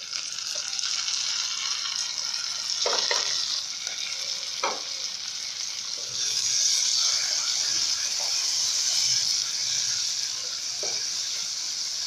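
Chopped tomatoes and green chillies sizzling in hot oil with sliced onions; the sizzle swells as they land. A wooden spatula stirs them, knocking and scraping against the pan a few times.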